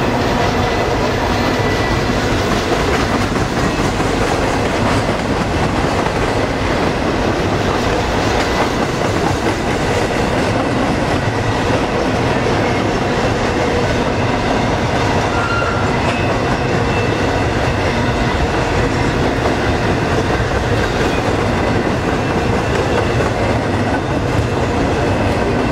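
Freight train of empty container well cars rolling past at speed: a steady rumble and clatter of steel wheels running over the rail joints.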